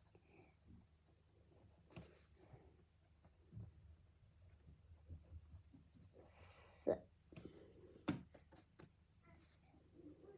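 Faint sounds of drawing on paper: soft scratching and small taps, with a louder scratch about six and a half seconds in.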